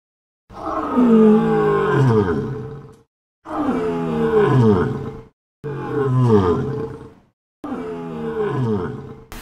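Male lion roaring: four long calls in a row, each sliding down in pitch, with short pauses between them.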